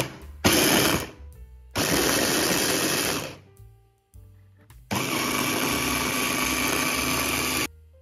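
Electric chopper (blender bowl attachment) run in pulses on orange pieces, pureeing them: two short bursts in the first second, a run of about a second and a half, then a longer run of nearly three seconds that stops suddenly near the end.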